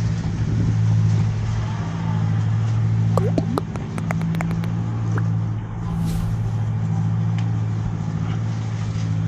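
A steady low mechanical hum, with a few short squeaky chirps gliding downward about three to four seconds in and a brief hiss around six seconds.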